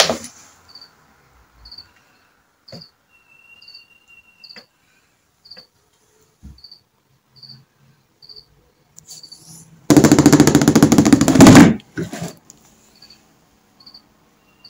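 A cricket chirping steadily, about one and a half short high chirps a second. About ten seconds in comes a loud rattling scrape lasting nearly two seconds: the hard plastic storage box jolting across the parquet floor as the cat pushes against it.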